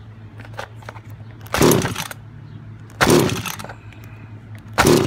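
Two-stroke engine of a gas 1/5-scale RC car pull-started three times, each pull spinning it over briefly without it catching. It does not fire because it is a little flooded from being primed with a lot of 3-in-1 oil.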